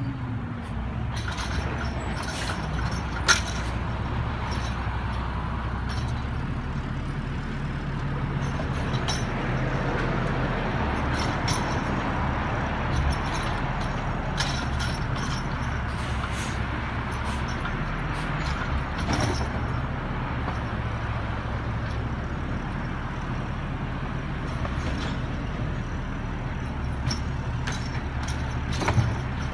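Natural-gas-powered McNeilus AutoReach side-loading garbage truck running steadily at low speed. Short sharp knocks and clanks come now and then, the loudest about three seconds in and another near the end.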